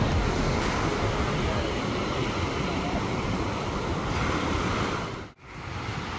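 Ocean surf breaking and washing up a sand beach, with wind buffeting the microphone. The sound drops out sharply for a moment about five seconds in.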